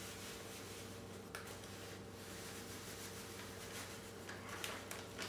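Faint rustling of cheesecloth being handled and spread over a plastic measuring cup, with a few light clicks, over a steady low hum.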